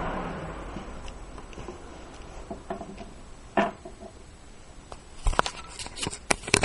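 Light handling noises: a few small clicks and taps, with one sharper knock about three and a half seconds in and a run of clicks near the end, as two spark plugs are moved from a paper towel onto a concrete floor.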